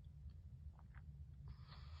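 Near silence between coughs: a low steady hum, a few faint clicks, and a faint breathy hiss starting near the end.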